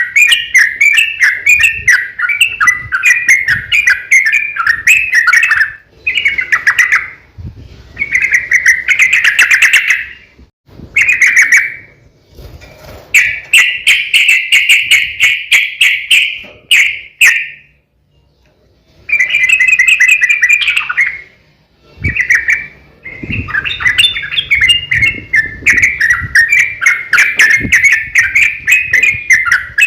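Yellow-vented bulbul (trucukan) singing long, rapid, bubbly chattering phrases (the 'ropel' style) broken by brief pauses, with sharp clicks scattered through it.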